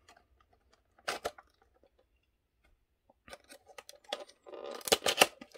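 An action figure's cardboard-and-plastic toy packaging being opened by hand: two sharp clicks about a second in, then a growing run of clicks and crackling, rustling noise near the end as the tape holding it shut is pulled.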